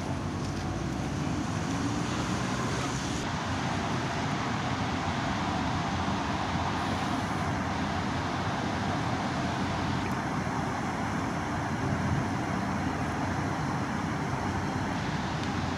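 Steady outdoor background roar: an even rumble with hiss and no distinct events.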